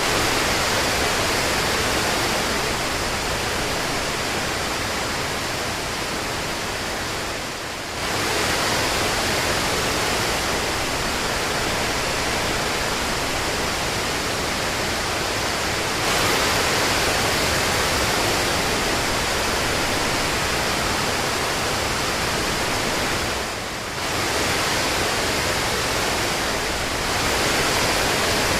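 Steady, even hiss of falling rain, with brief dips in level about eight and twenty-four seconds in.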